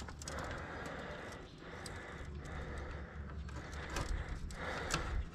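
Wind rumbling on the microphone under patchy rustling and a few sharp clicks from gear being handled, such as fishing rods at a truck's tailgate.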